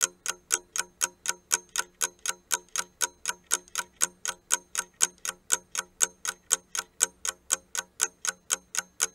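Clock-ticking sound effect marking a quiz countdown: a steady train of sharp ticks, about four a second, with slightly alternating louder and softer strokes in a tick-tock pattern.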